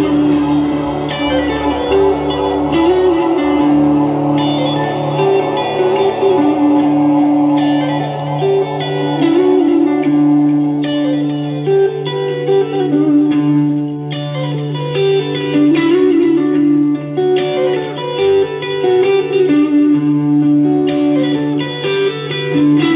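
A live band playing guitar-led rock music, with electric and acoustic guitars over bass and drums; the deepest bass notes drop out about three seconds in.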